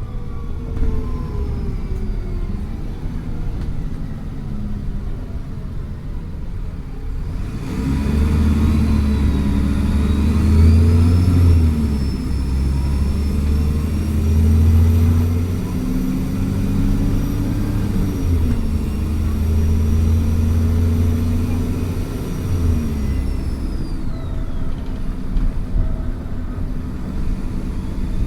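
Dennis Trident Enviro400 double-decker bus's diesel engine pulling hard at full kickdown from about eight seconds in, its note climbing and dropping back several times as the gearbox changes up, with a high turbo whistle over it. Before that the engine runs more quietly with a falling note, and near the end the whistle dies away as the throttle eases.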